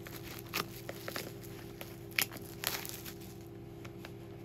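Several sharp crinkles and clicks as a sealed cardboard trading-card box is handled and turned over in the hands, over a steady low hum.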